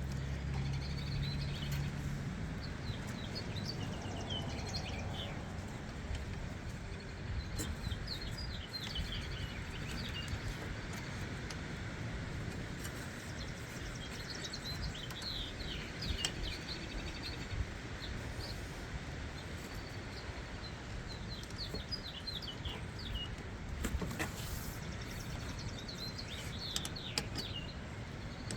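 Small songbirds chirping and calling on and off over steady background noise, with a low hum that stops about two seconds in and a few light knocks.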